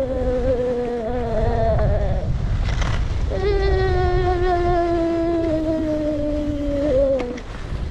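A voice humming or singing two long held notes, the second starting about three seconds in and sliding down as it ends, over wind buffeting the microphone during a fast ski descent.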